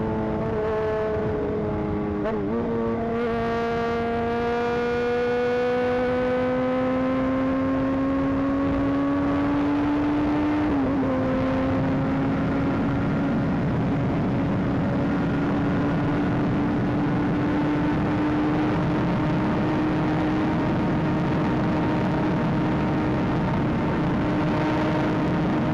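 Honda CBR 600 inline-four motorcycle engine accelerating on the road over wind and road noise. Its pitch climbs steadily for several seconds, drops at an upshift about eleven seconds in, then holds almost steady as it cruises.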